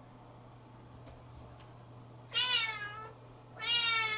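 Siamese kitten meowing twice, two drawn-out calls about a second apart, the second slightly falling in pitch. The kitten is calling out impatiently for its owner, who has left the room.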